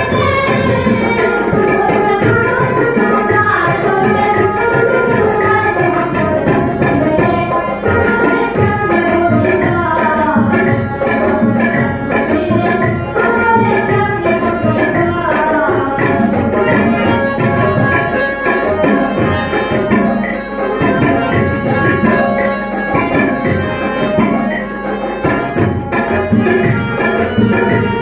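Bengali folk music: tabla drumming a steady rhythm under a melody on harmonium, dotara and keyboard.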